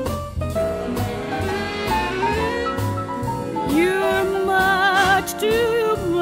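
Big-band jazz music with horns and saxophone playing, with wavering held notes in the second half and no words sung.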